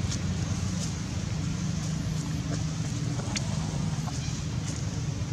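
A steady low hum, with a few faint clicks and rustles scattered through it.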